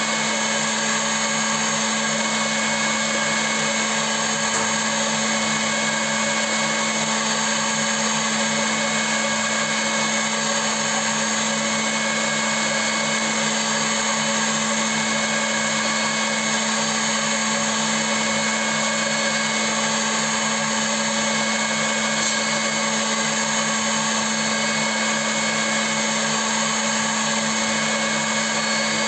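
CNC milling machine running, a steady electric whine with several fixed tones and an even hum, unchanging in level throughout.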